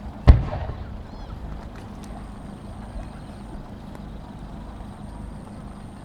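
One loud, deep boom of a large aerial firework shell being fired from its mortar, with a short echoing tail, over a steady low background hum.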